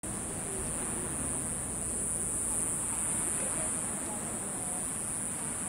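Evening outdoor ambience: a steady, high-pitched insect drone over a low background hiss, with faint distant voices.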